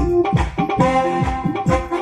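Live band music played through a PA system during a sound check: sustained keyboard chords over a quick run of low drum hits that each drop in pitch.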